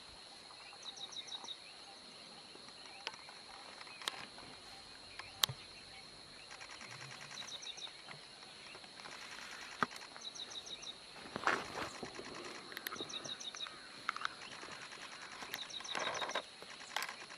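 Outdoor natural ambience: a steady high insect drone with short bursts of rapid, high chirping repeating every second or two. There are a few sharp clicks, and two brief rustling noises come about two-thirds of the way through and near the end.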